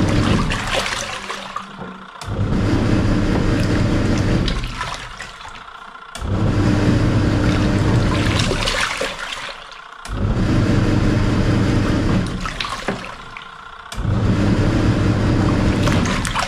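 Samsung SW-655P twin-tub washing machine's wash motor turning the pulsator in bursts of about two seconds, stopping for about a second and a half between bursts while the water swishes in the tub. This stop-start is the machine's wash action.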